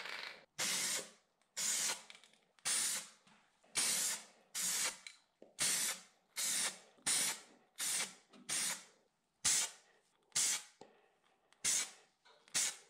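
Spray paint hissing in short bursts of under a second, about one a second, as a primer coat is laid on a flashlight's metal body.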